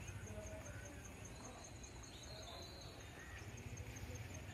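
Faint outdoor ambience: an insect chirping steadily, high-pitched, about five pulses a second, over a low rumble.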